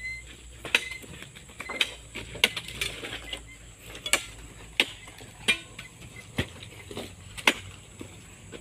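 Irregular sharp knocks and thuds, about one a second, as oil palm fruit bunches are speared with metal-tipped poles and thrown up into a dump truck's bed, landing on the load.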